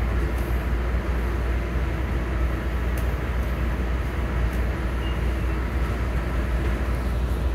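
A moving MARC commuter train heard from inside the passenger car: a steady low rumble with running noise, and a couple of faint clicks.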